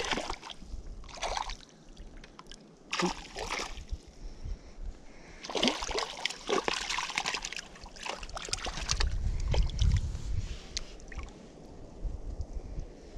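A hooked trout thrashing at the surface of shallow creek water, with a series of short splashes, several of them close together about halfway through. A low buffeting on the microphone follows a little later.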